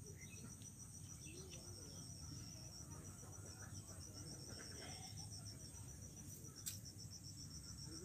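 A cricket chirring continuously in a fast, even pulsing trill, faint over a low rumble. A single sharp click comes about two-thirds of the way through.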